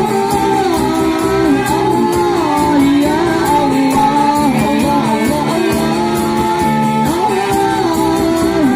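Sholawat, Islamic devotional song, sung over instrumental accompaniment with sustained chords and a steady percussion beat.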